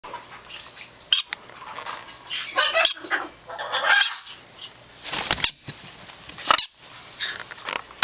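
Baby parrots squawking and chattering in a brooder, harsh raspy calls coming in short bursts one after another. There is a brief rustling bump about five seconds in.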